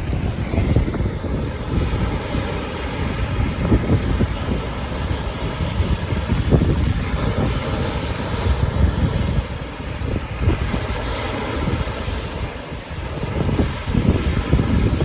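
Wind gusting on the microphone over lake waves washing in, driven by a strong easterly wind; the low rumble rises and falls with the gusts.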